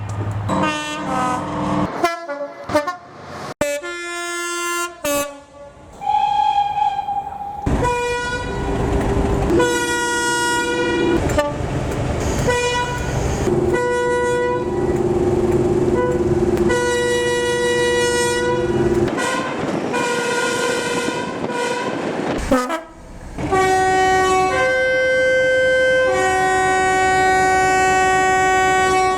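British train horns sounding in a run of short clips cut one after another. Two-tone horns blow high and low notes in turn, some in quick repeated toots and some in long held notes.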